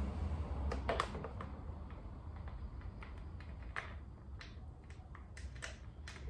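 Irregular light clicks and taps, about a dozen over a few seconds, as the CRF250L's plastic fender panels and their fasteners are handled and fitted back on, over a steady low background rumble.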